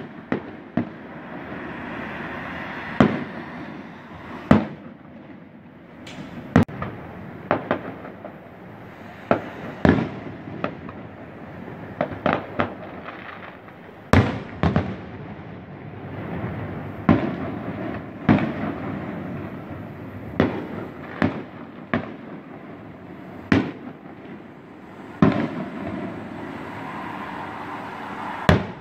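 Aerial fireworks display heard from afar: a string of about twenty sharp bangs from shells bursting, unevenly spaced at roughly one a second, over a continuous rumbling background.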